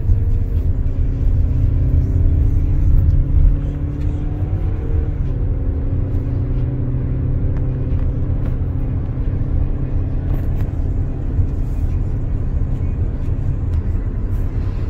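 Road and engine noise inside a Hyundai SUV's cabin while it cruises on a freeway: a steady low rumble of tyres and engine, with a faint drone that shifts slowly in pitch during the first few seconds.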